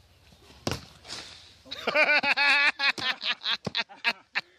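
A single sharp hit about half a second in, then a person laughing loudly in quick repeated bursts that grow shorter toward the end.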